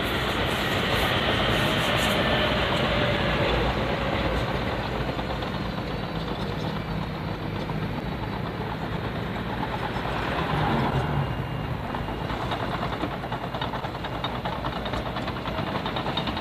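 Steady rumble of a vehicle running, a little louder in the first few seconds.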